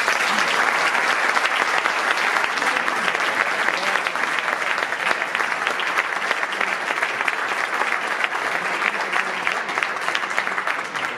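Audience applauding: dense, steady clapping from many hands that dies away near the end.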